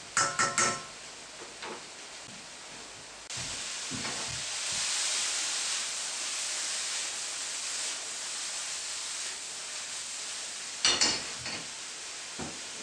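Sliced mushrooms frying in a pan: a steady sizzle that jumps louder about three seconds in and holds. A few clinks of a utensil against the pan come at the start and again near the end.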